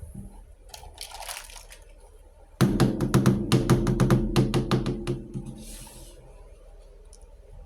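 Miniature plastic toy kitchen pieces being handled: a short rustle, then a loud rattling clatter of many quick clicks lasting about two and a half seconds, then a brief rustle.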